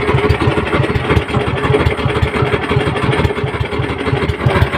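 Small outrigger boat's engine idling steadily, with a rapid, even low beat.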